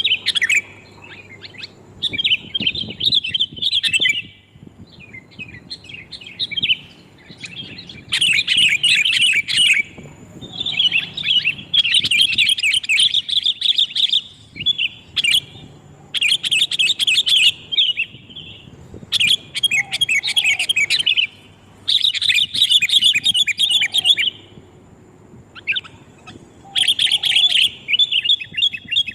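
Sooty-headed bulbuls calling loudly: repeated bursts of rapid, chattering high notes, each lasting a second or two with short pauses between. This is the kind of call used to lure the birds in.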